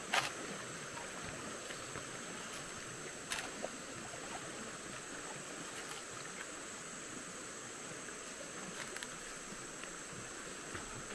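Steady rush of shallow stream water flowing over stones, with two sharp clicks, one right at the start and one about three seconds in.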